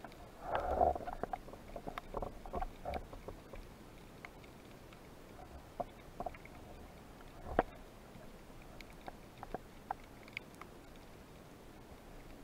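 Underwater sound heard through a camera housing: a muffled swishing burst about half a second in, then scattered sharp clicks and ticks over a low steady hiss.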